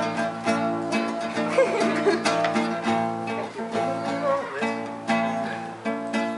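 Acoustic guitar strumming chords, with the instrumental accompaniment of the song carrying on between sung lines.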